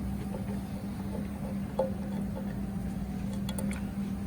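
Screws being taken out with a screwdriver: a few faint light clicks and ticks over a steady low hum.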